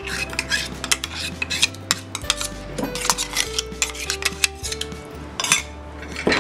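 Steel spoon scraping and clinking against a steel mixer jar and mesh strainer as thick ground kokum paste is scraped out for straining: irregular clinks and scrapes, the loudest about five and a half seconds in.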